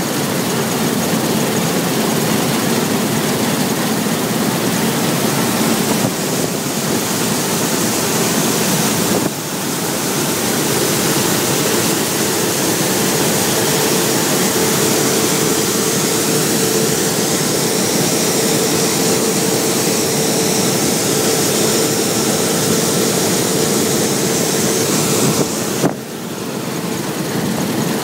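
Claas Lexion 600 combine harvester running steadily, its engine and threshing machinery giving a constant loud hum and hiss, with brief breaks about nine seconds in and near the end.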